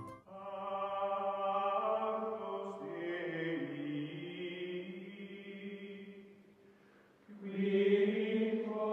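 Outro music of long, held choir-like chords that shift slowly in pitch. It fades about six and a half seconds in, and a louder chord comes in a moment later.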